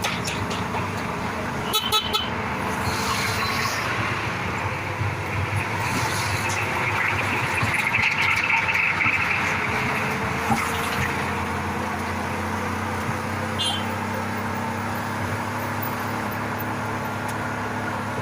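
Car on the move through traffic: steady engine and road noise, with vehicle horns honking.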